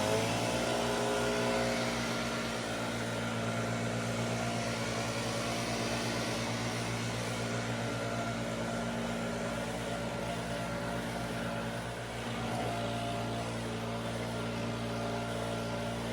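An engine running steadily at a constant speed, just after revving up, with a steady rushing hiss over it.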